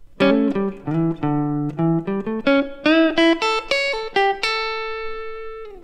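Electric guitar playing a short Mixolydian pentatonic lick in A: a two-note start, a quick run of single notes with a string bend near the middle, ending on the A at the 5th fret of the high E string, which rings for about a second and fades.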